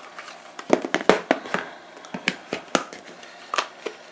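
Handheld Fluke multimeter being slid and pried out of its protective case, giving a string of irregular clicks and knocks with a little scraping.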